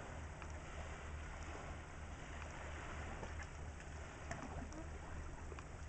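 Tidal current of a reversing falls swirling across the sea surface: a steady wash of moving water with faint scattered ticks, over a low uneven rumble.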